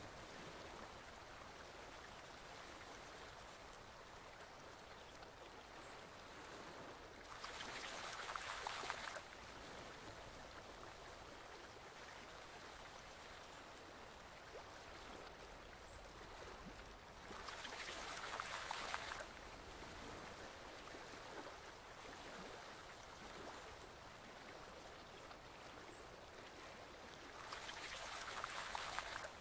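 Forest stream flowing, a steady faint rush of water. About every ten seconds a louder splashing swell lasts around two seconds and then cuts off abruptly.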